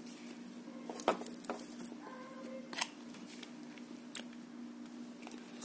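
Cardboard packaging and a small part being handled: a handful of sharp clicks and taps, the loudest about a second in and near three seconds, over a steady low hum.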